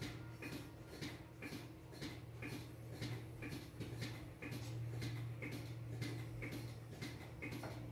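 Steady low machine hum with a regular ticking, about one tick a second.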